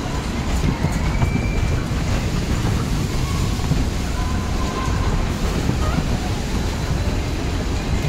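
Steady low rumble and wind buffeting on the phone's microphone while riding in a spinning fairground ride car, with faint funfair sounds behind.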